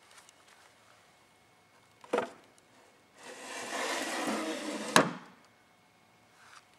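A wooden knock, then the wooden drawer of an antique oak table sliding shut, wood scraping on wood for nearly two seconds and ending in a sharp knock as it closes.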